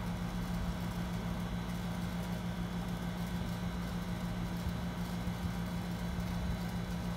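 Steady low machine hum at a constant pitch, unchanging throughout, with no distinct clicks or knocks over it.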